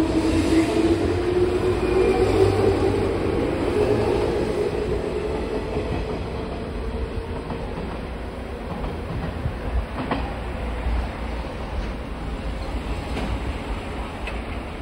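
JR 201 series electric commuter train, with chopper-controlled motors, accelerating away from a station: a motor whine rises in pitch over the first few seconds over the rumble and clatter of the wheels. The sound fades as it pulls away, with a few sharp clacks over rail joints near the end.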